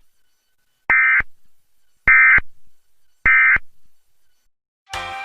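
Emergency Alert System end-of-message data tones: three short, harsh digital bursts about a second apart. Music begins just before the end.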